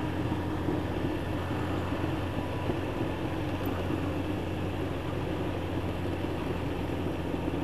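Yamaha YZF 1000cc inline-four motorcycle engine running at a steady cruise, with wind and road noise on the bike's camera microphone.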